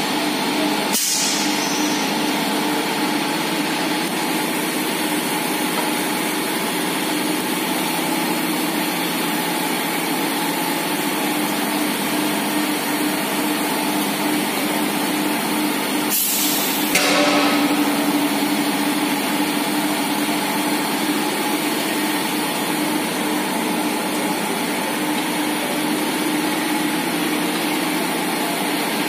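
Jumbo bag filling machine under way: a steady machine hum, broken by two bursts of compressed-air hiss from its pneumatic valves, a short one about a second in and a longer, louder one of about a second and a half around the middle.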